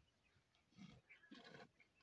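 Camel drinking water from a stone trough with its muzzle in the water: two faint gulps close together in the second half.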